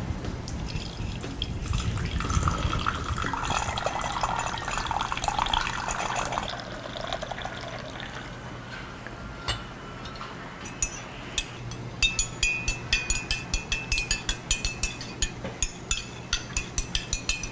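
Water being poured into a ceramic cup, then, after a few lone taps, a teaspoon stirring and clinking against the cup, about three or four ringing clinks a second.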